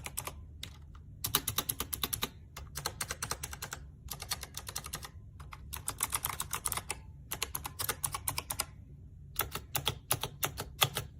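Fast typing on a Razer Huntsman Mini 60% keyboard with Razer's own purple clicky optical switches, the keystrokes coming in quick bursts broken by short pauses.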